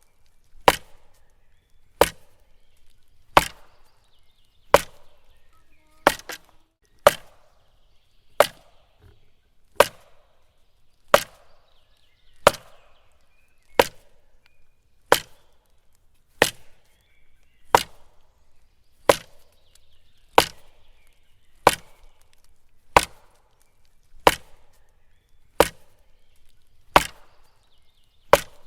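A tree trunk being struck again and again, a sharp wooden knock roughly every 1.3 seconds, each with a brief ring-out.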